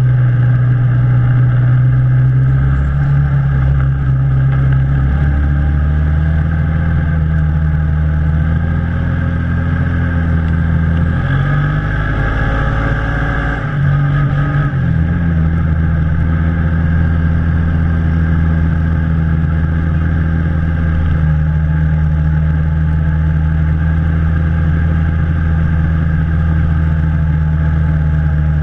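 ATV engine running steadily under load as it tows a sled over snow. About halfway through, its pitch wavers and dips for a few seconds, then it settles back to steady running.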